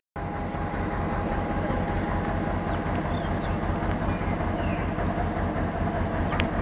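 M6-class diesel locomotive engine idling steadily with a low, pulsing note, and a single sharp click near the end.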